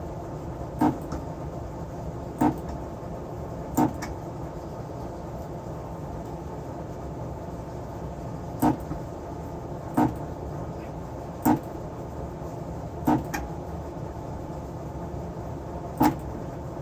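Battery tab spot welder firing, eight short sharp snaps spaced about one and a half seconds apart with a longer gap in the middle, as nickel strip is welded onto battery cells. A steady hum runs underneath.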